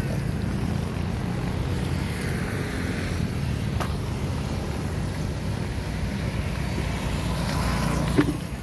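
Surfskate wheels rolling over pavement, a steady low rumble with wind on the microphone, and a sharp knock near the end.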